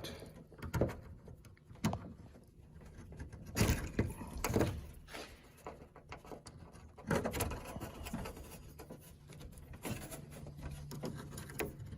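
Irregular clicks, knocks and scrapes of metal lock parts being worked by hand into a truck door panel, a few seconds apart, with a faint steady hum underneath.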